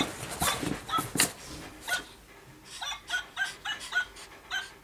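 Small dog giving short high-pitched yips, a few in the first second, then a quick run of about four a second from around halfway through.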